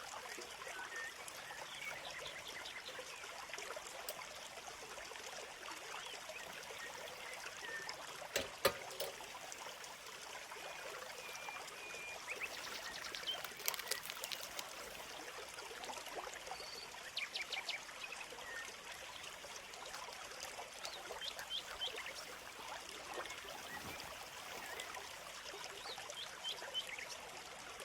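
A small stream babbling steadily, with small birds chirping now and then. A single sharp knock sounds about eight and a half seconds in.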